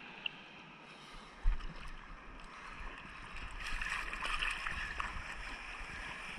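Seawater lapping and sloshing against a camera at the water's surface, with a brief slap about a second and a half in. The water noise grows louder from about three and a half seconds in.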